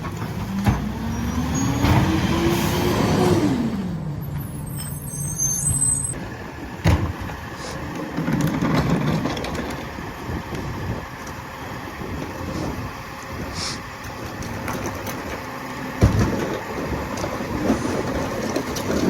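Freightliner rear-loader garbage truck's diesel engine running, revving up over about three seconds and dropping back to idle, as it does when the packer is cycled. Three sharp clanks sound through it: about a second in, around seven seconds and near sixteen seconds.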